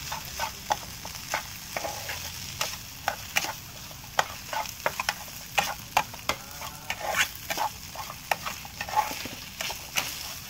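Metal spatula stirring fried rice in a frying pan: irregular scrapes and clinks of metal on the pan, several a second, over a steady sizzle.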